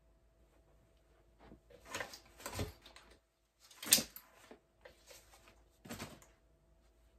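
Someone handling things at a wooden dresser: a few rustles and light knocks, the loudest a sharp knock about four seconds in.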